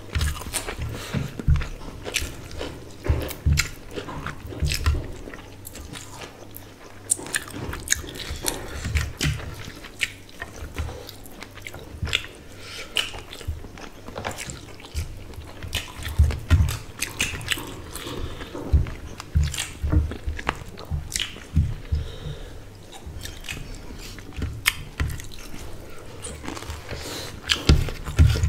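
Close-miked chewing and wet mouth sounds of two people eating rice and curry with their hands: many irregular short clicks mixed with soft low thumps.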